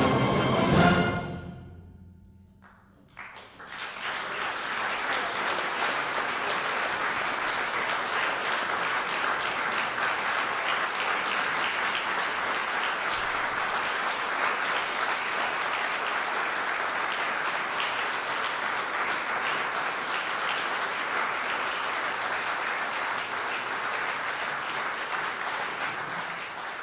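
A concert wind band's final chord cuts off about a second in and rings away in the hall. After about two seconds of hush, the audience breaks into steady applause.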